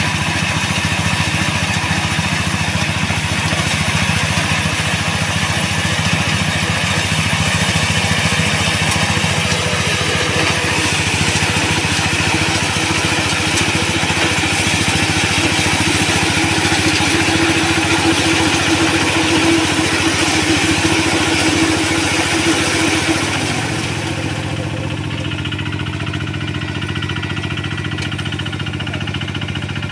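Quick QH-11 combine harvester running steadily, its engine hum mixed with a loud hissing machinery clatter. About three-quarters of the way through the hissing part drops away and the machine settles into a quieter, lower engine drone.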